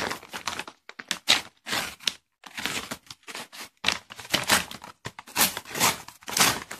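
Brown paper parcel wrapping being slit with a box cutter and pulled apart by hand: a run of short, irregular crinkling and tearing rustles.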